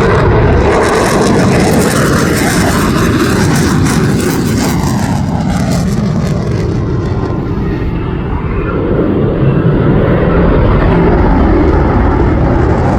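F-15 fighter jets making a low pass, a loud jet roar whose pitch falls as they go by; the noise dips briefly about eight seconds in, then swells again.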